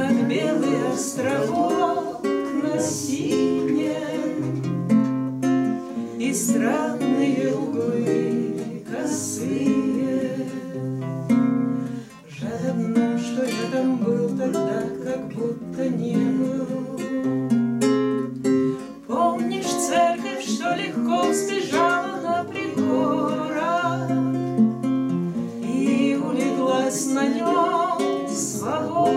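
Two classical guitars playing together in a bard song, with a woman singing over them.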